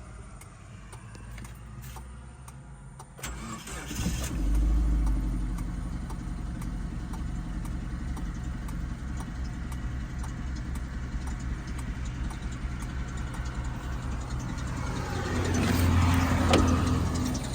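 Suzuki APV 1.6 engine cranked on the starter and catching about four seconds in, then running roughly with a regular knocking, misfiring beat, rising louder near the end. The knock and misfire come from a cracked cylinder head.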